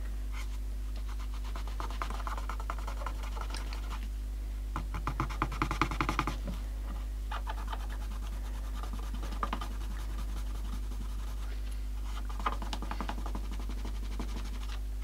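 Rapid scratching and rubbing of a small stick on the case of a 1960s HMV Sprite transistor radio, working off spots of paint and goo, in several short bouts that are busiest about five to six seconds in. A steady low hum runs underneath.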